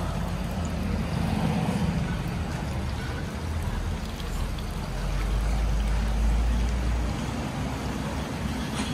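Outdoor street ambience: a steady noisy wash with a low rumble that swells between about five and seven seconds in.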